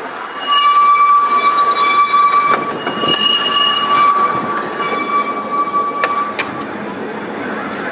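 Seaton Tramway tram running on its narrow-gauge track, its wheels squealing steadily on the curve from about half a second in until near the end, over the rumble of the tram, with a few sharp clicks from the rails.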